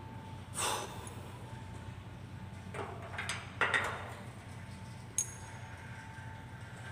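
Handling noises from assembly work: a few brief scrapes and knocks, then a sharp metallic clink with a short ring about five seconds in, over a steady low hum.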